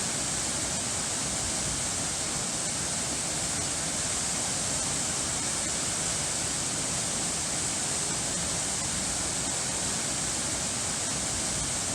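Running water rushing steadily with an even, unbroken hiss, with no music.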